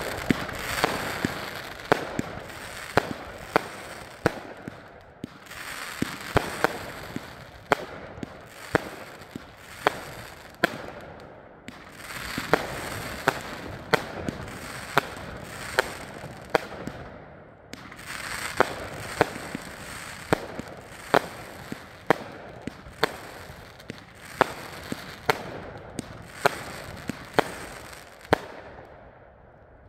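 Dominator "Fire Er Up" 30-shot, 500 g firework cake firing shot after shot, sharp reports about every half-second to a second with a crackling hiss from the bursting stars between them. The shots come in runs broken by brief lulls, and fade out near the end.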